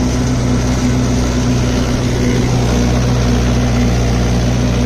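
Mahindra 575 DI XP Plus tractor's four-cylinder diesel engine running steadily at about 2000 rpm under the load of a spring-tine cultivator in fourth low gear, the load pulling it down by about 200 rpm as the new tractor is run in.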